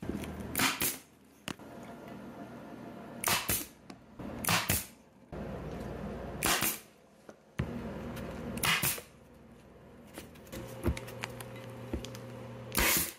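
Arrow staple gun firing staples one at a time, about six sharp shots spread out, some in quick pairs, as it fastens a trim strip along the edge of a golf cart seat cushion base.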